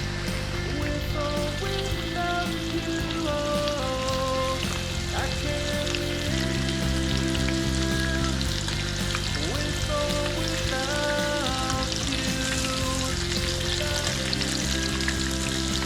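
Trout frying in hot oil, a steady sizzle, under background music with held chords that change every couple of seconds.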